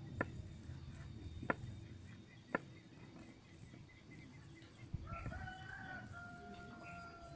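Three sharp chops of a large kitchen knife through raw meat onto a round wooden chopping block, in the first few seconds. A rooster then crows once, one long call of about two seconds near the end.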